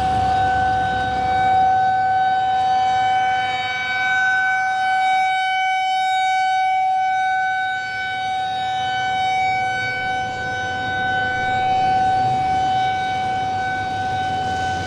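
Outdoor tornado warning siren sounding one long steady tone at a constant pitch.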